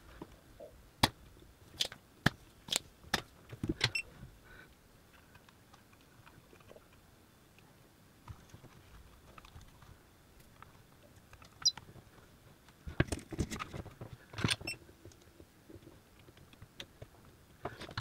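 Scattered sharp clicks and taps of small tools and parts being handled on an electronics workbench, in two clusters with quiet stretches between.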